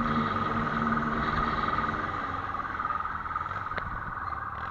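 Police motorcycle running during a pursuit, its engine holding a steady note that fades about two seconds in, under a continuous high, rapidly pulsing tone.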